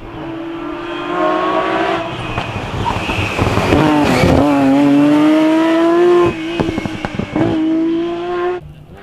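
Lancia Stratos HF rally car's Ferrari Dino V6 accelerating hard past at full throttle, its pitch climbing through repeated gear pulls. A run of sharp pops and crackles comes as the throttle closes, about two-thirds of the way in, before it pulls once more.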